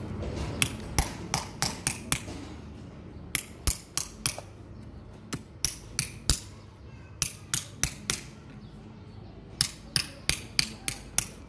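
Small hammer tapping a hoof-trimming blade held against a donkey's hoof, paring the hoof wall with the hoof left standing on the ground. The taps come as sharp clicks in quick runs of about four to seven, with short pauses between runs.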